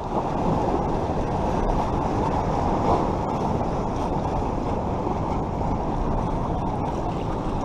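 Steady rushing noise, strongest in the low range and with no tone in it: wind buffeting the microphone.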